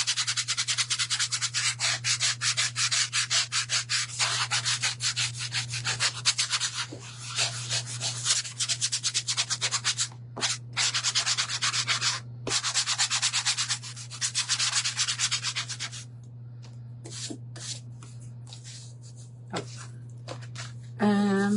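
Hand sanding of a glitter-coated wooden board: rapid back-and-forth strokes of sandpaper, with brief pauses, turning to a few slower, quieter strokes for the last few seconds. A steady low hum runs underneath.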